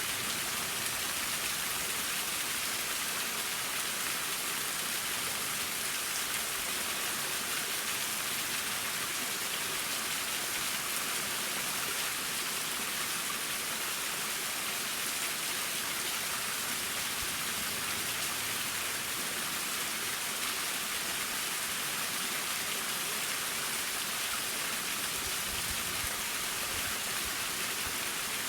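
Waterfall's falling water splashing steadily, an even, unbroken hiss.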